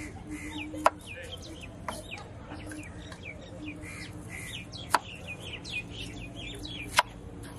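A cleaver chopping star fruit on a wooden block, four sharp knocks at uneven intervals. Birds chirp throughout, many short falling chirps, under a steady low hum.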